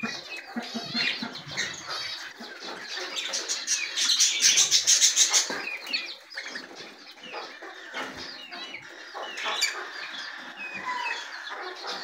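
A hen clucking in a wire cage, with small cage birds chirping all around. There is a louder run of rapid, high chirping about four to five seconds in.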